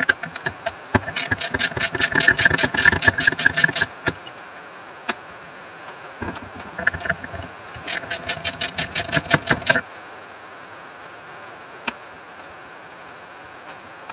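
Socket ratchet clicking rapidly in two runs of a few seconds each while bolts are undone on a diaphragm pump's housing.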